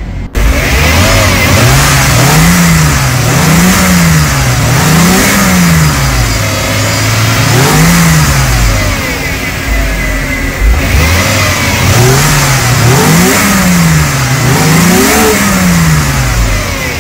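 Mercedes-Benz 190E 2.6's M103 straight-six petrol engine, through its original exhaust, revved in quick throttle blips. The revs rise and fall about six times, with a few seconds of idle between the blips in the middle.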